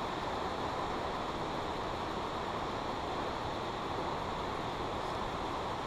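Steady wind rushing over an open snowfield: an even hiss with no distinct events.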